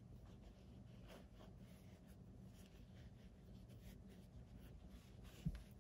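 Faint rustling and scratching of a fabric strip being pulled through and wrapped around piping cord, over a low steady hum, with one soft low bump near the end.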